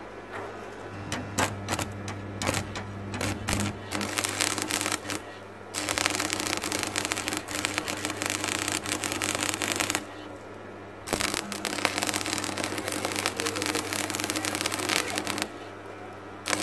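Stick (arc) welding with a transformer welder: the electrode arc crackles and spits in three runs of about four seconds each, broken by short pauses, over the welder's steady transformer hum. The freshly repaired machine is striking and holding a working arc.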